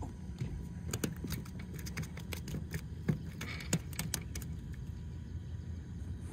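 A quick scatter of small clicks and taps from handling a freshly caught smallmouth bass and unhooking it on the dock boards. This starts about a second in and dies away after a few seconds, over a steady low rumble.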